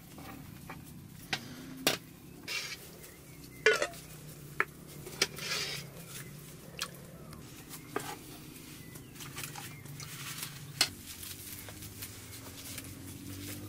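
Metal ladle clinking against an aluminium cooking pot and a metal plate as lamb broth is served, with several sharp clinks, the loudest about 4 s and 11 s in. Short wet splashes come in between as broth is poured onto the plate.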